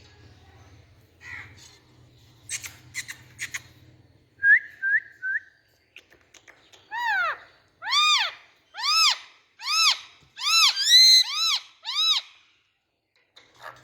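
Indian ringneck parakeet calling: a few faint clicks and three short chirps, then a run of about seven loud arching calls, roughly one a second, each rising and falling in pitch.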